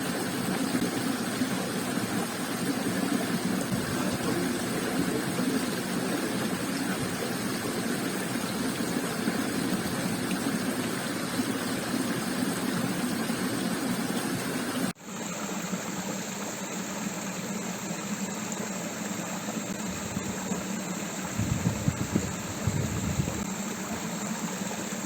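Steady rushing of creek water, broken by an abrupt cut about halfway through, after which it continues with a different tone and a few low knocks near the end.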